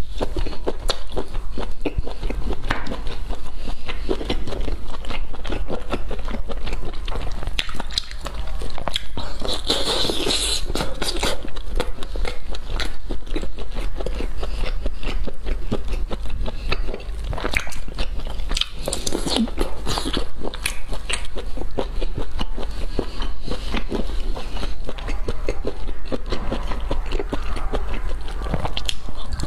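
Close-miked eating sounds: a person sucking and chewing cooked shellfish, a dense run of wet smacks and clicks, with louder wet bursts about ten and nineteen seconds in.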